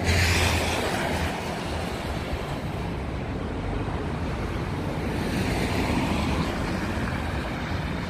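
Steady rushing noise of city street traffic mixed with wind on the microphone, swelling a little near the start and again past the middle.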